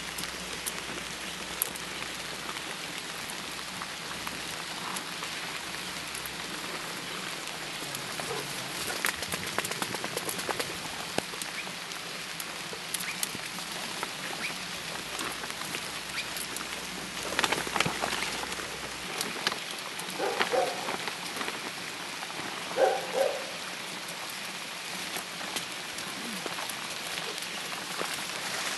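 Steady rain pattering, an even hiss full of small drips, with a few brief louder sounds clustered about two-thirds of the way through.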